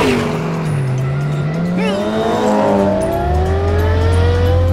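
Cartoon race-car engine sound effect revving up, its pitch climbing steadily over several seconds, after a quick falling swoosh at the start.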